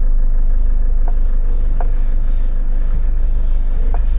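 Wind buffeting the microphone in gale-force gusts, a loud steady low rumble, with a few faint short high chirps over it.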